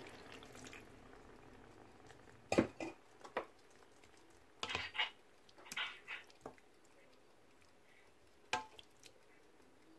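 A wooden spatula stirring pork and chicken wings in a little water in a white-coated frying pan, giving a string of short knocks and scrapes against the pan, loudest about two and a half seconds in. A sizzle from the water just poured in dies away in the first second.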